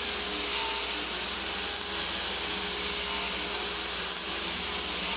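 Power saw running steadily while cutting cherry into pieces, a high whine over motor noise that sags slightly in pitch a few times as the blade takes the wood.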